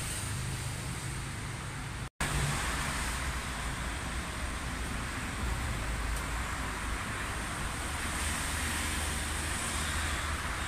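Steady street traffic: a low engine rumble from buses and cars with road noise and hiss. The sound breaks off for an instant about two seconds in.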